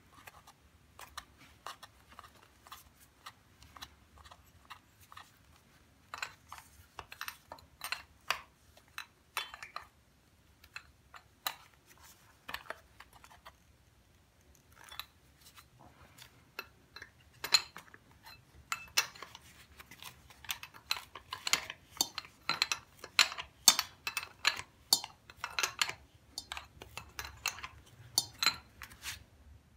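Irregular metallic clicks and clinks of hand tools and a steel fitting being handled and threaded into an engine block. They are sparse at first and come thick and fast in the second half.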